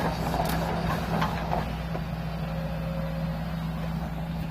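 Excavator diesel engine running steadily, with a few sharp metallic clanks in the first second and a half.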